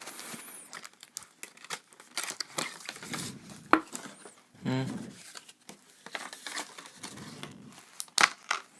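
Packaging crinkling and rustling as it is torn open and handled, with many scattered clicks and taps.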